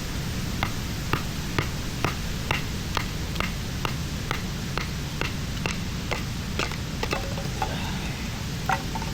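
A series of light, evenly spaced knocks, about two a second, over a steady rushing background; near the end the knocks turn irregular, with a brief ringing tone among them.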